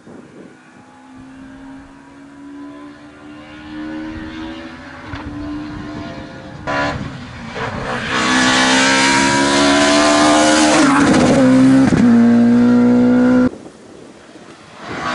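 BMW Compact F2/14 rally car's engine, heard as it approaches under hard acceleration and grows louder, with revs climbing and falling through gear changes. It is loudest as the car passes close by, with a gear change near twelve seconds, then cuts off suddenly.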